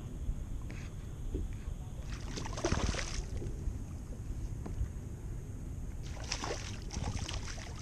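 Low steady rumble of wind on the microphone and water against a kayak hull, with a short splash about two and a half seconds in and a longer spell of splashing from about six seconds in as a hooked porgy thrashes at the surface beside the kayak.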